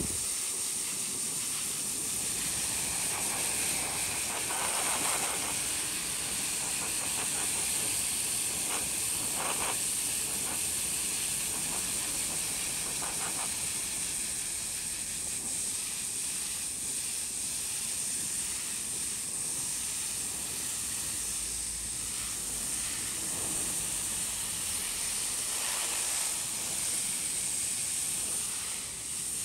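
Garden hose spraying water onto the outdoor AC condenser coil fins from outside, a steady hiss of water spray with some splashing, rinsing coil cleaner and matted hair out of the fins.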